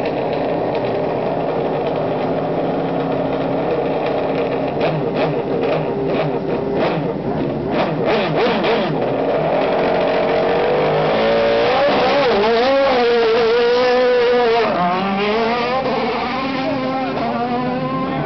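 Open-wheel single-seater race car's engine running at the start line with short sharp throttle blips, then, about two thirds in, launching and revving hard up and down through several gear changes as it pulls away, fading near the end.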